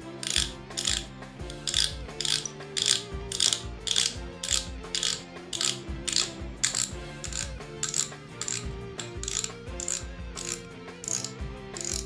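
Shimano Sienna 1000 FE spinning reel's front drag clicking in short ratcheting runs, about two a second and unevenly spaced, as the spool is turned by hand. The drag click is loud and shrill.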